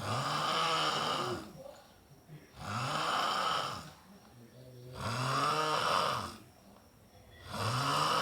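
Loud snoring in a steady rhythm, one rasping snore about every two and a half seconds, each one wavering up and down in pitch, with quieter breaths between.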